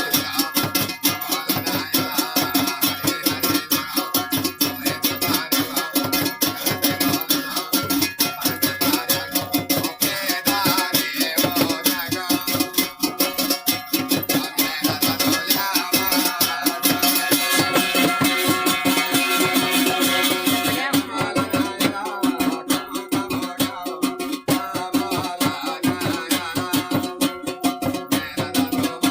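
Garhwali folk dance music for an aachhri dance: a fast, steady percussion beat with a melody over it.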